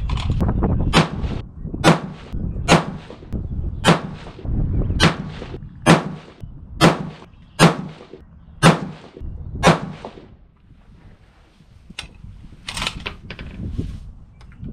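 Ten rifle shots about a second apart from a .224 Valkyrie bolt-action rifle firing a ladder test of 77-grain Sierra MatchKing handloads charged with Varget powder and primed with CCI 400 primers. Fainter sharp sounds follow near the end.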